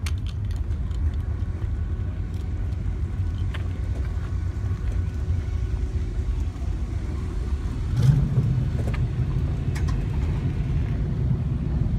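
Classic car engines running, a low steady rumble. It grows louder about eight seconds in as one comes close.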